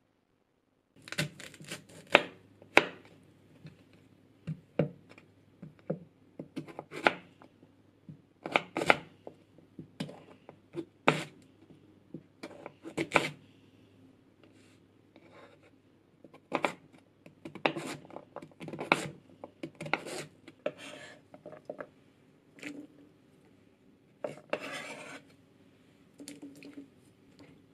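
Kitchen knife cutting raw sweet potato on a wooden cutting board: irregular sharp knocks, one or two a second, as the blade goes through and meets the board, with one longer, noisier stroke near the end.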